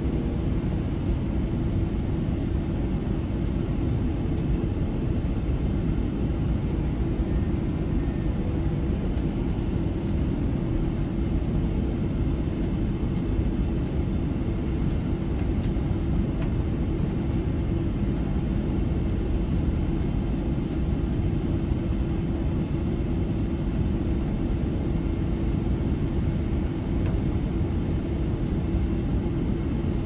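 Steady low rumble inside the cabin of a Boeing 777-300ER airliner on final approach, with a constant hum under it.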